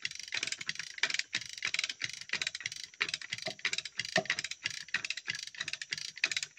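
Hand-operated ratchet winch clicking rapidly, about seven or eight clicks a second, as it is worked to haul a heavy felled log.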